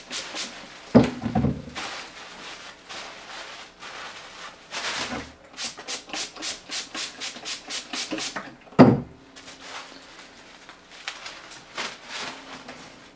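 Trigger spray bottle misting a bundle of dark Ecuador wrapper tobacco leaves in runs of quick, even squirts, with the dry leaves rustling as they are turned. There are two dull thuds, about a second in and again near 9 seconds, as the bundle is handled.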